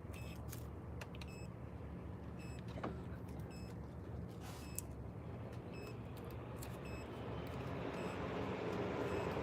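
Car engine idling steadily, with a hiss that grows louder over the last couple of seconds and a few faint clicks.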